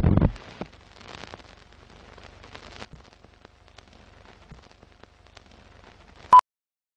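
Old film countdown leader sound effects: a heavy low thump at the start, then a run of faint film crackle and pops, and one short high beep about six seconds in.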